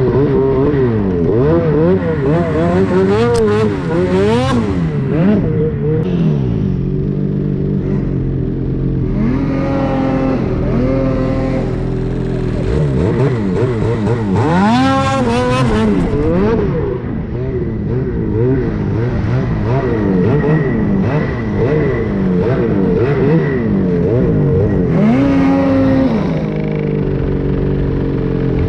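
Ski-Doo Summit Gen 5 snowmobile with the turbocharged 850 two-stroke engine, running hard through snow. The engine pitch rises and falls again and again with the throttle, climbing highest a few times: around three seconds in, around fourteen seconds in and near the end.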